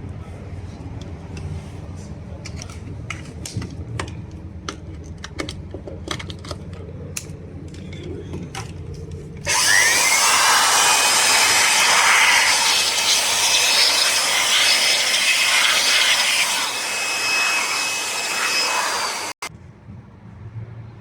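Handheld electric air blower switched on about halfway through, its motor whine rising as it spins up, then blowing with a loud, steady rush of air for about ten seconds before cutting off abruptly, used to clear dust off a plasma TV circuit board. Before it starts, light clicks and handling over a low hum.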